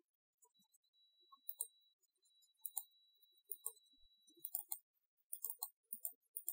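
Quiet clicking of a computer keyboard and mouse, short clicks often in close pairs, starting about a second and a half in and coming more often toward the end.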